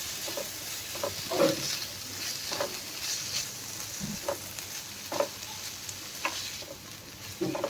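Onion, capsicum and green chilli sizzling in hot oil in a pan as Schezwan chutney is stirred into them. Scrapes of the stirring come every second or so over a steady sizzle.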